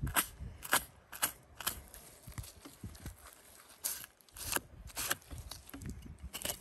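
Knife blade slicing through membrane and fat while skinning a cow's head: a series of short cutting strokes at irregular intervals, about eight.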